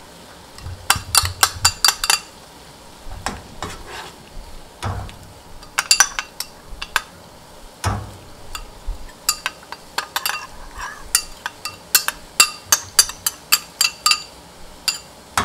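Metal spoon tapping and clinking against a small glass bowl and the pan as spicy seasoning paste is scraped out and stirred into boiling broth, in quick runs of taps, over the steady bubbling of the broth.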